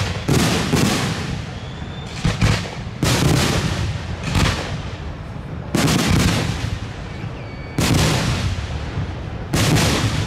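Aerial firework shells bursting overhead: about eight loud booms, one every second or two, each trailing off briefly.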